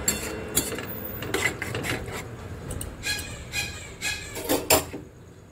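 A stirring utensil scraping and knocking against a metal pot as thick dal with jute leaves is stirred, in a run of short irregular scrapes that stop about five seconds in.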